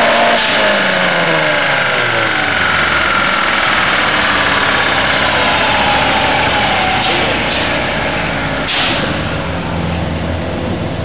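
Turbocharged 1.6-litre Geo Storm four-cylinder on a chassis dyno, coming off the throttle at the end of a pull. Engine speed drops over about three seconds and settles low, with short hissing bursts later, the strongest about nine seconds in.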